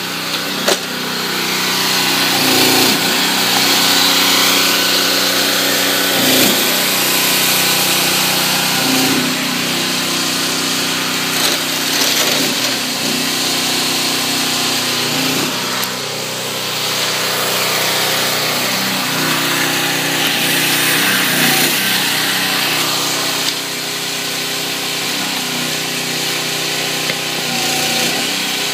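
Trenchless pipe-bursting equipment running: a steady engine-driven hydraulic drone whose pitch shifts every few seconds.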